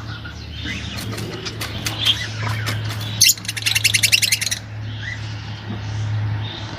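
Small cage bird singing: a string of short high chirps, with a fast rattling trill of about ten notes a second lasting just over a second in the middle, over a steady low hum.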